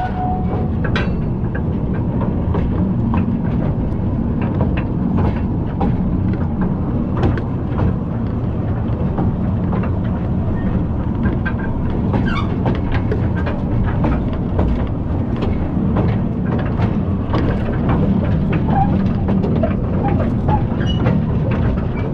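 Small mine trolley train running on rails: a steady low rumble with frequent irregular clacks and knocks from the wheels and cars.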